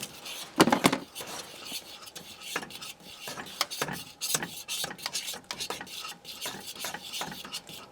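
A utensil stirring and scraping food around a pan in short, irregular strokes, with one louder scrape within the first second.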